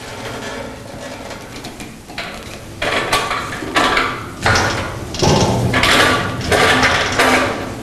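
A drum depalletiser trolley being wheeled across a concrete floor with a drum hanging in its grip: castors rolling and the metal frame and drum rattling and clanking in irregular surges, louder from about three seconds in.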